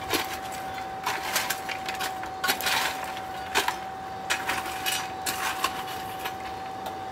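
Lumps of coal clinking and scraping as they are raked about in a coal forge with a metal rod, in irregular bursts. Under it runs the steady whine of the hair-dryer blower feeding air to the fire.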